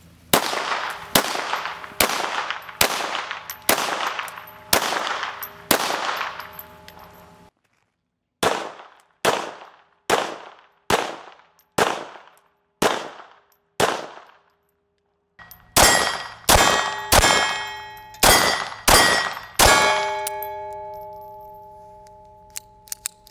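Semi-automatic FN 1910/22 pistol in 7.65 mm (.32 ACP) being fired: three strings of six or seven single shots each, about one shot a second, with short silences between the strings. A ringing tone lingers and fades for a few seconds after the last shot.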